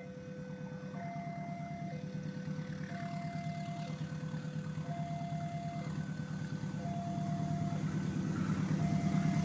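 Railway level-crossing warning alarm sounding two alternating tones, switching about once a second, over the low steady drone of a diesel locomotive engine that grows steadily louder as the train approaches.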